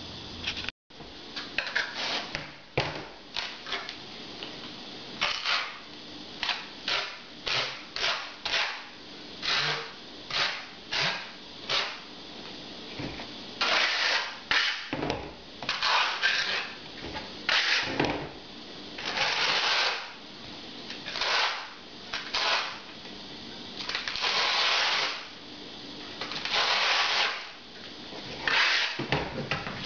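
Notched steel trowel scraping tile adhesive across the back of a tile in repeated strokes, the shorter strokes giving way to longer combing sweeps in the second half.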